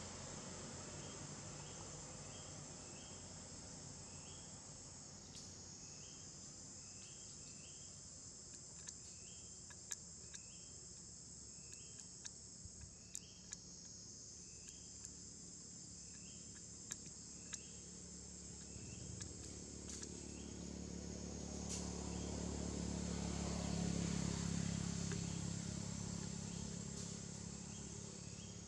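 Forest ambience: a steady chorus of insects, with a short chirp repeating about once a second through the first half and a few scattered sharp ticks. A low rumble swells in the last third and then fades.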